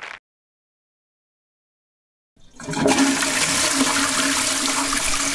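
Silence, then about two and a half seconds in a loud rush of water starts suddenly and keeps going.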